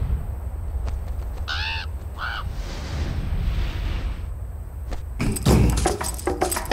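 Steady desert wind hiss with a low rumble, and a crow cawing twice, about a second and a half and two and a quarter seconds in. About five seconds in a thump lands and fast, clicking wood-block percussion music begins.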